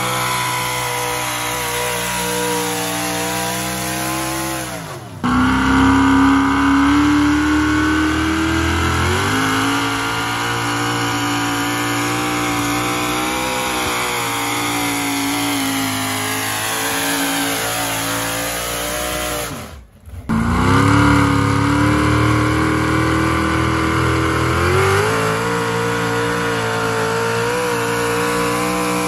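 Pulling pickup truck engines running hard at high revs, dragging a weight-transfer sled down a dirt track. The steady engine note breaks off for an instant twice, about five seconds in and near twenty seconds. Each time it comes back, the pitch steps up a few seconds later.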